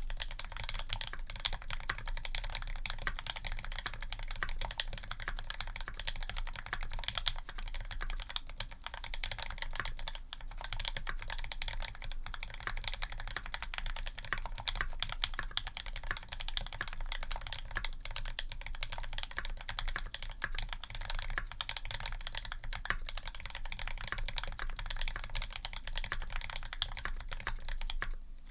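Continuous fast typing on a Square 60 custom mechanical keyboard: lubed H1 switches with TX films and 65 g springs in an aluminium plate, under GMK keycaps, giving a dense, steady stream of keystroke clacks.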